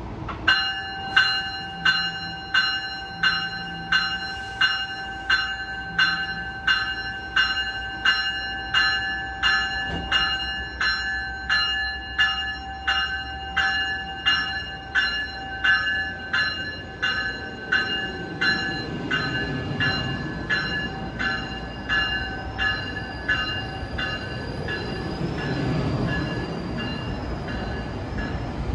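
GO Transit train's bell ringing steadily, about three strikes every two seconds, as the train departs. From about 18 seconds in, the rumble of the bilevel coaches' wheels on the rails grows louder as the train gathers speed.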